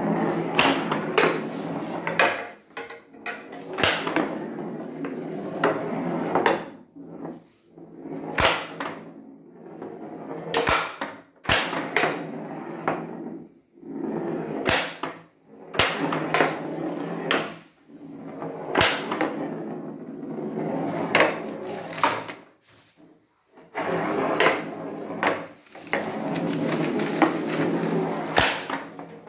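Steel pinball rolling across a bare plywood whitewood playfield, with sharp clacks as the relay-switched solenoid flippers fire and bat it, one every second or few. There is a short pause a little past the middle.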